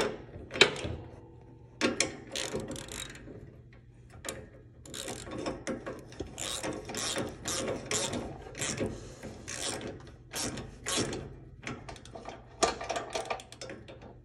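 Socket ratchet wrench clicking in short runs of strokes as it turns a bolt on the leveling-chain bracket of a zero-turn mower deck, with a couple of louder clacks near the start.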